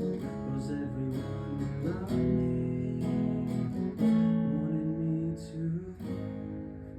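Acoustic guitar strumming chords, the chord changing about once a second.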